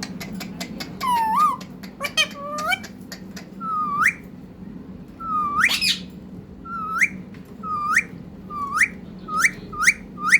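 Pet parrot mimicking an Asian koel's call: a run of loud whistled notes, each dipping and then sweeping sharply upward, repeated about ten times and coming faster toward the end. A few sharp clicks come in the first two seconds.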